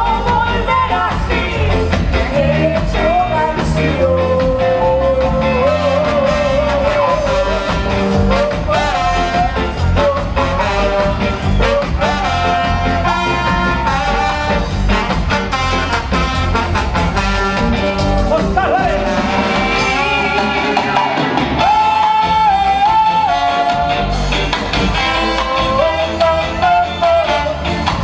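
A ska band playing live, a woman singing lead over saxophone, electric guitar, drums and keyboard.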